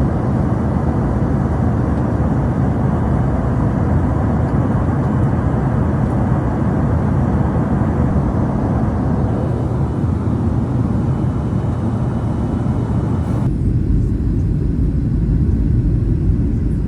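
Steady roar of an airliner heard from inside the cabin during its descent, dense and deep-toned. About 13 seconds in the sound changes abruptly: the higher hiss drops away and a deeper rumble is left.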